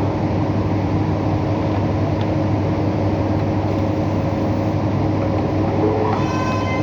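A steady, low mechanical drone with a constant hum, from a machine or engine running in the background, unchanged throughout.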